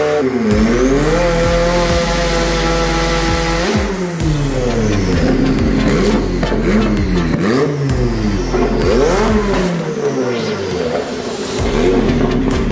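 Turbocharged drift car engine on a dyno, held at steady revs. It dips and climbs back to a steady hold, then is revved up and down in quick repeated blips for several seconds before settling again.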